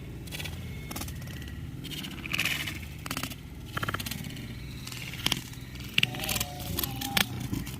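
Irregular scraping and rattling of fishing gear, with short runs of rapid clicks and several sharp knocks, while a hooked mullet is being landed.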